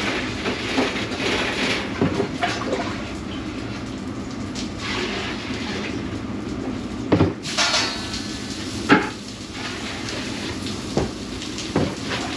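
Scattered clanks and knocks, a handful of separate strikes, over a steady background hum.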